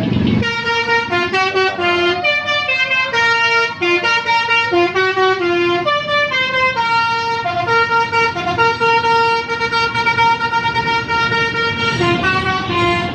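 Tour bus 'telolet' horn, a multi-note musical air horn, playing a tune of short and held stepped notes for about twelve seconds.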